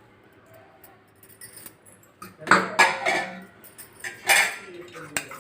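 A spoon clinking and scraping against a bowl a few times, from about halfway through, as roasted sesame seeds are spooned in.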